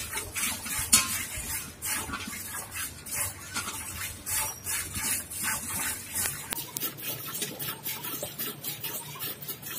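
Milk squirting from a cow's teats into a steel pail in rhythmic hand-milking strokes, about two to three squirts a second, growing fainter in the last few seconds.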